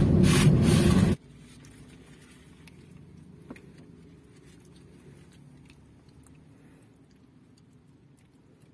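Loud crackling rustle of the paper wrapper on a shawarma roll as it is handled, cut off abruptly about a second in. After that only a faint steady low hum from inside the car remains, with a few soft taps.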